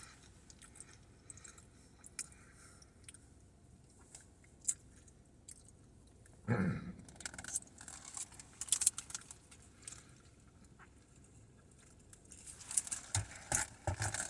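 A person chewing food, with wet mouth clicks and smacks scattered throughout and a denser run of them near the end. About six and a half seconds in, there is a brief low vocal sound from the eater.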